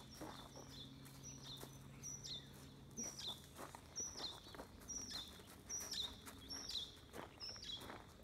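Footsteps on gravel as a person and a large dog walk. Over them a bird repeats a high, falling two-note call about once a second.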